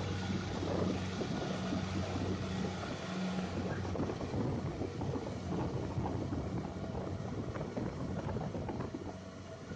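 A heavy farm machine's engine running, with a steady low hum that fades after about four seconds, over rough churning noise and many small irregular knocks.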